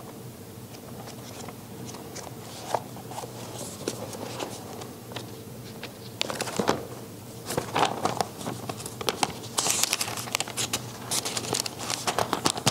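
Thin Bible pages being leafed through at a pulpit microphone: irregular rustling and crinkling with small paper clicks, busier in the second half.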